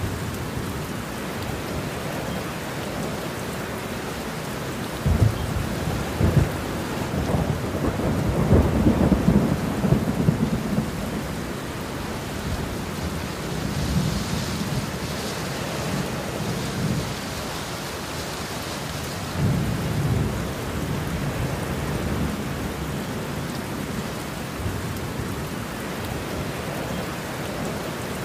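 Heavy, steady rain with thunder: two sharp claps about five and six seconds in, then a long rolling rumble, and a weaker rumble about twenty seconds in.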